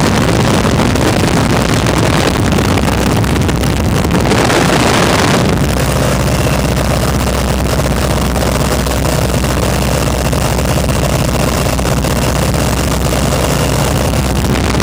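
WACO biplane's engine running steadily in flight, a low hum under loud wind rushing past the open cockpit onto the microphone. A stronger gust of wind noise comes about four seconds in and lasts about a second.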